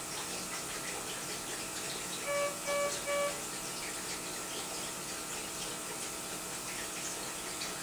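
Three short electronic beeps from a patient vital-signs monitor, a little over two seconds in, over a steady low hiss.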